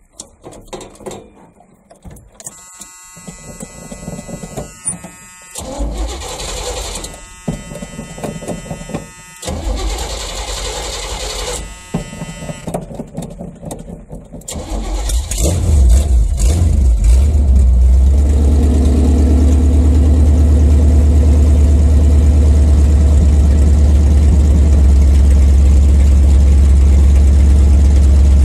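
Cold start of a rebuilt 454 big-block V8 in a 1982 Chevy C30 truck, sitting for a couple of days. It cranks on the starter in several bursts for about fifteen seconds, catches and settles into a steady idle.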